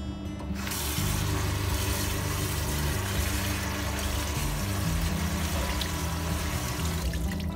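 Kitchen tap water running into a stainless steel sink and splashing over raw chicken livers being rinsed by hand; the flow starts about half a second in and stops near the end.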